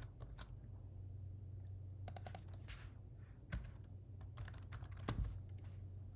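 Computer keyboard typing in short, scattered runs of keystrokes, over a low steady hum.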